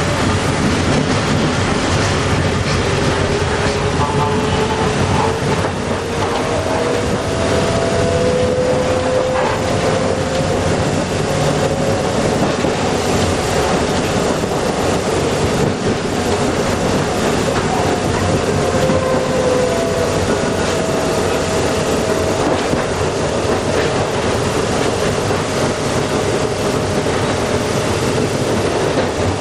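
Fukui Railway F10-class streetcar running along its track with a steady rumble and wheel clatter. A rising whine sits over it for several seconds in the first half, and a more level whine comes later.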